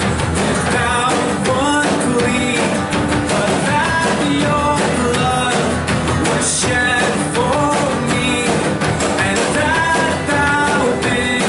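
Worship band playing a rock-style song live, with singing over electric guitar and drums.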